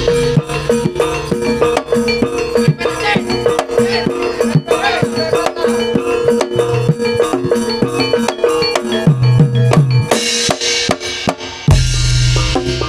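Live Barongan Blora gamelan accompaniment playing a fast, busy rhythm: drums under many short ringing metal notes, with one steady held tone. The deep drum sound drops out briefly near the end, then comes back with a loud hit.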